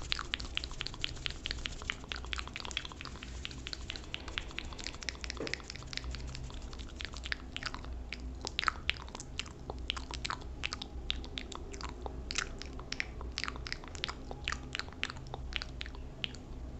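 Close-miked ASMR mouth sounds: a rapid, irregular string of wet clicks and lip smacks, several a second, right at a condenser microphone, over a faint low hum.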